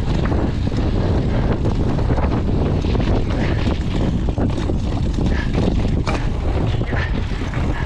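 Mountain bike descending fast over dry dirt and rock: heavy wind noise on the microphone, with the tyres rumbling and the bike rattling and knocking over the rocks.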